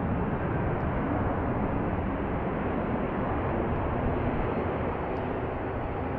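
Jet engine rumble of a Sun Country Boeing 737 taking off, a steady noisy roar that slowly fades as the aircraft moves away.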